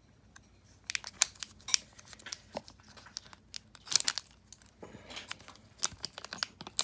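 Foil Digimon card booster pack wrapper being crinkled and torn at by hand, in irregular clusters of sharp crackles starting about a second in. The pack is stiff and resists tearing open.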